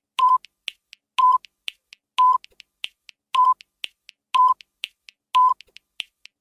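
Quiz countdown-timer sound effect: a short, steady beep about once a second, with a few light, sharp ticks between the beeps.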